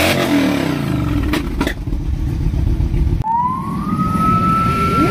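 A big touring cruiser motorcycle's engine runs with its revs falling back, with two sharp clicks. After a cut about three seconds in, a police car's siren starts, rising in pitch and then holding one steady note.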